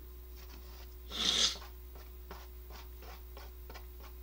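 One short, hissy slurp of rice noodles eaten from chopsticks, about a second in. Faint small ticks follow.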